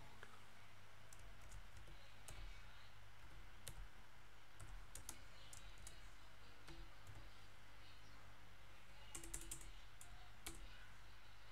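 Faint computer keyboard typing: scattered single key clicks, then a quick run of several keystrokes about nine seconds in as spaces are typed in.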